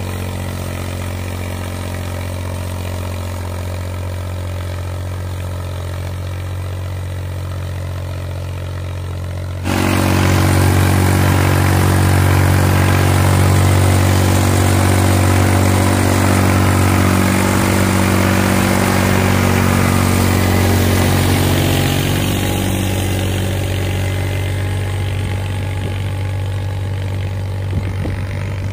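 Three-cylinder Perkins diesel engine of an Ursus C-360 3P tractor running steadily under load while pulling a three-furrow plough. About ten seconds in it gets suddenly louder and fuller, then eases off toward the end.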